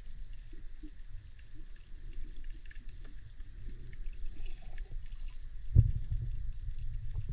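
Underwater sound picked up by a GoPro while snorkeling: a steady low rumble of water movement with faint scattered crackling clicks, and a single thump about six seconds in.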